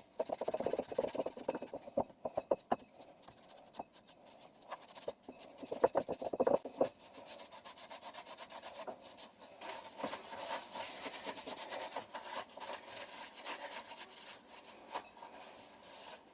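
Blue paper shop towel rubbed hard back and forth over a metal bench vise, a scrubbing, wiping sound. It is uneven with a few sharp knocks at first, then settles into steadier, faster rubbing about halfway through.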